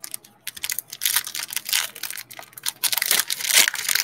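A 2020 Donruss Football foil card pack being crinkled and torn open by hand: a dense run of crackling rustles that starts just after the beginning and keeps on.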